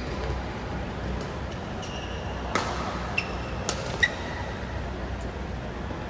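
Badminton rally: rackets strike the shuttlecock with sharp cracks about every half second to a second. The loudest hits come about two and a half and four seconds in.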